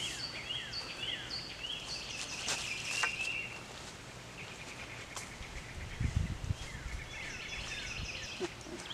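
A songbird singing a phrase of short, repeated down-slurred whistled notes near the start and again near the end, with a few sharp clicks as PVC pipe is handled and a brief low rumble about six seconds in.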